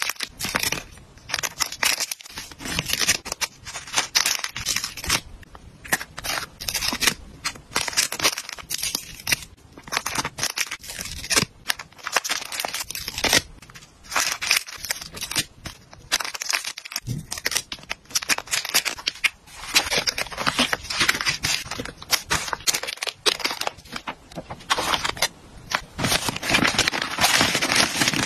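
Thin clear plastic snack bags crinkling and crackling as they are handled and packed, with irregular sharp clicks and taps from long acrylic nails on the plastic.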